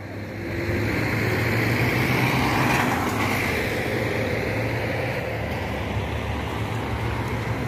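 Double-decker intercity coach's diesel engine running as the coach pulls out and drives slowly past. A steady low rumble that swells about half a second in, then holds.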